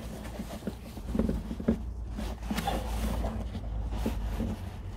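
Gloved hands working in a car's rear wheel arch: irregular handling noises, light knocks and clicks of plastic and metal parts, with a couple of sharper knocks around the middle. A steady low hum runs underneath.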